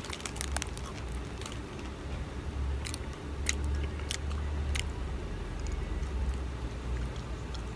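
A ripple-cut potato chip being chewed with the mouth close to the microphone: irregular, crisp crunches, with a low steady rumble underneath.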